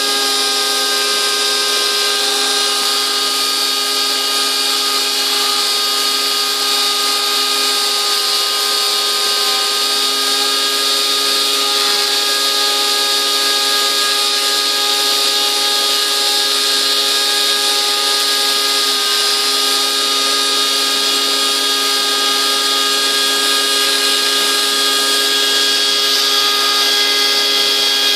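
Rotary-tool spindle of a homemade CNC router running at high speed while its small bit engraves a pattern into a wooden board: a steady whine, its pitch dipping slightly now and then as the cut goes on.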